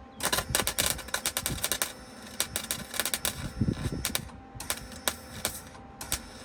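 Welding arc crackling with rapid, dense pops, first in a run of nearly two seconds and then in four shorter bursts with pauses between them, as a steel floor patch panel is stitch-welded in short passes.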